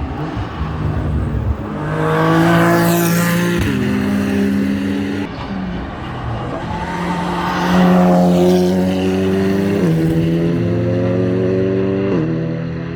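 GT3 race car engines passing at speed, loudest twice: about two seconds in and again about eight seconds in. Each engine note climbs under acceleration and drops abruptly at gear changes, about three times.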